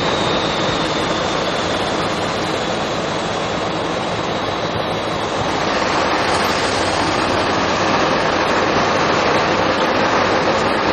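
Fire engines running their pumps with hose jets spraying water: a steady loud rushing noise, with a faint high whine that fades out about halfway through.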